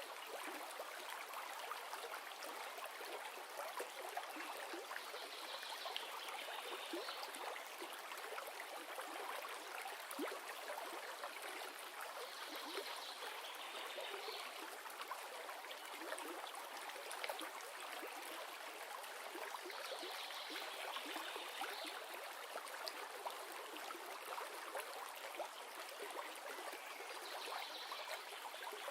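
River water running steadily, with a faint higher sound returning about every seven seconds.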